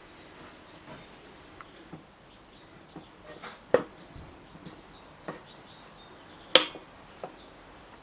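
Scattered clicks and light knocks of parts being handled while assembling a Mazda 13B rotary engine, with two sharper knocks at about four and six and a half seconds in.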